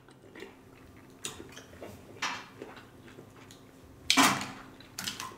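Quiet eating at a table: a few faint clicks and clinks of seafood shell and dishes, with one louder short noisy sound about four seconds in.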